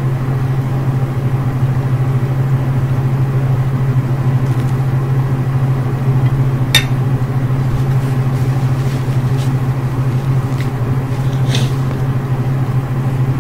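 Home furnace running: a steady, unchanging hum, with a single sharp click about seven seconds in.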